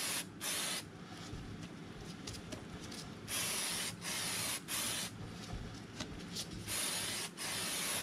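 Aerosol can of Bel-Ray Super Clean chain lube spraying onto a motorcycle drive chain in short bursts: two at the start, three about three to five seconds in, and two near the end, with quieter gaps between.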